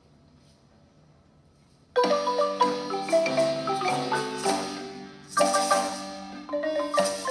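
Handmade wooden marimba played by several players: after about two seconds of near silence, a lively tune starts abruptly, quick melody notes ringing over a lower bass line, with a brief drop in loudness a little after the middle before the playing comes back in full.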